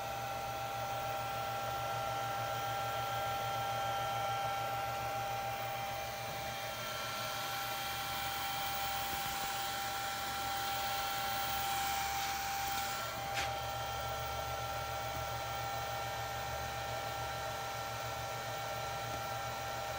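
Steady whir with a high, steady electrical whine and a low hum, from an Allen-Bradley PowerFlex 70 variable frequency drive running on test. A little after twelve seconds the whine briefly drops out, and a single click follows.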